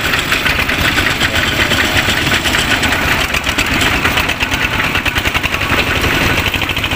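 Two-wheel walking tractor's single-cylinder diesel engine running with a rapid, steady knock.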